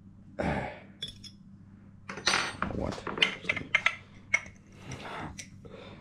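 Glass jars being handled on a wooden board: a run of clinks and knocks for about two seconds, from about two seconds in, as a glass swing-top jar of sugar is picked up and opened.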